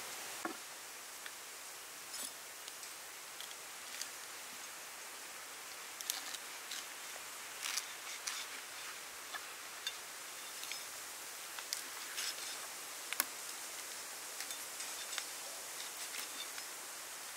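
A cleaver cutting through a crisp-skinned whole roast duck, with scattered sharp crackles and clicks as the blade goes through skin and joints. A steady hiss lies under it.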